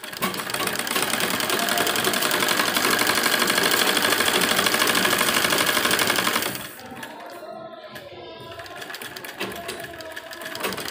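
Domestic sewing machine stitching a folded hem along the edge of a sleeve, running fast with rapid, even ticking. About six and a half seconds in it goes much quieter, and it picks up again near the end.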